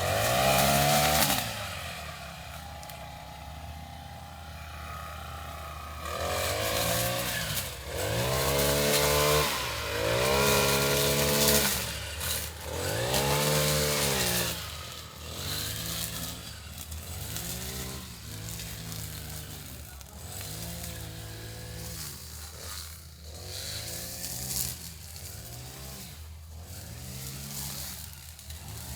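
A lawnmower's small petrol engine runs with its pitch swelling up and falling back over and over, about once every two seconds. It is louder during the first half.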